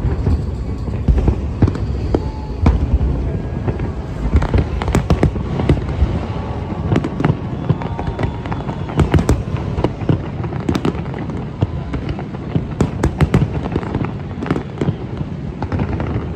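Aerial fireworks display going off: a rapid, irregular series of sharp bangs and crackles, some coming in quick clusters, over a continuous low rumble of explosions.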